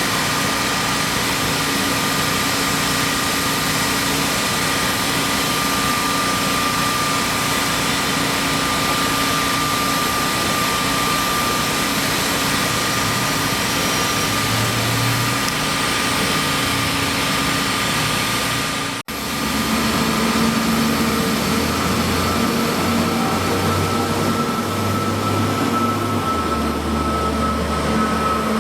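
Steady mechanical engine noise with a few constant tones running through it. The sound cuts out for an instant about two thirds of the way in, and the tones change after it.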